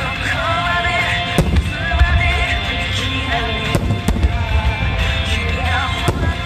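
Aerial fireworks bursting in a music starmine: deep rolling booms with several sharp cracks, over music played from loudspeakers.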